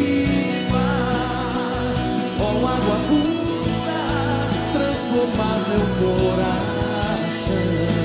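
Live band playing a worship song, with electric guitar and singing.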